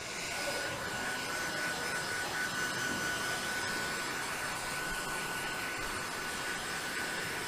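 Steady rushing air noise of a running electric blower, with a thin high whine held at one pitch.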